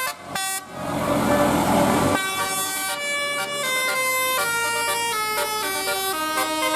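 Bus 'telolet' multi-tone musical air horn playing a quick tune of stepped notes. About half a second in, a loud rushing hiss covers it for roughly a second and a half, then the tune goes on.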